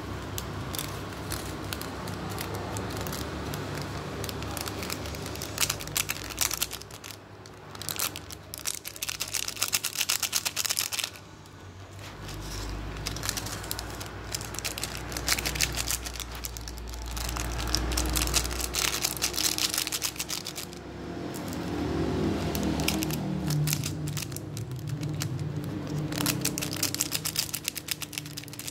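Small plastic seasoning sachets crinkling and crackling as they are handled, torn open and shaken out over noodles, in irregular bursts.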